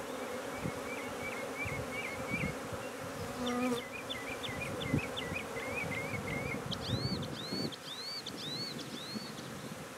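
A swarm of honey bees buzzing in a steady hum around a frame held over a nuc box, with one light knock about five seconds in.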